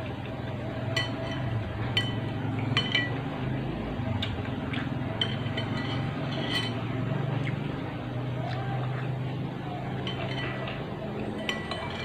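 Spoon clinking against a bowl while eating bakso, a handful of separate short clinks that ring briefly, over a steady low hum.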